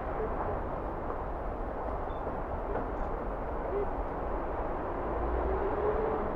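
Steady city street noise of passing traffic, a constant low rumble and hiss with no bell strikes, and a faint short higher tone about five seconds in.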